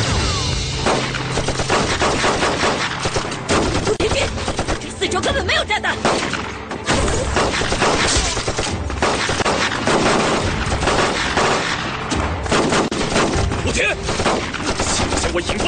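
Heavy, sustained gunfire: many rifle and submachine-gun shots overlapping in rapid succession.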